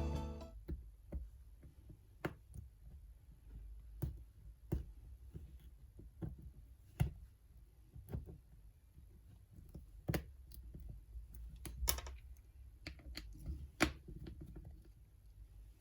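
Small hand tools clicking and tapping against a tablet and workbench at irregular intervals while an iPad is taken apart, after background music fades out at the start.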